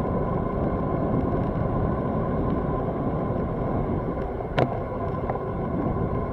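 Wind rushing over the microphone and tyre noise from a bicycle coasting downhill at about 30 km/h, with a steady faint high tone and one sharp click about four and a half seconds in.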